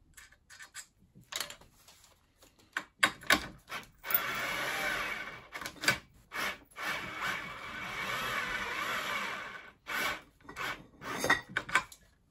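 Cordless drill with a socket running in two bursts, a short one and then a longer one of about three seconds, with a steady whine, unscrewing a stiff brass valve from an aluminium nitrous oxide cylinder. Clicks and knocks from handling the tool and the socket come before and after.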